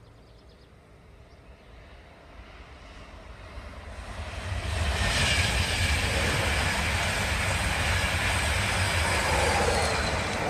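High-speed express passenger train passing at speed on the East Coast Main Line. The rushing rail and wheel noise swells over the first few seconds, stays loud for about six seconds as the train goes by, and begins to fade near the end.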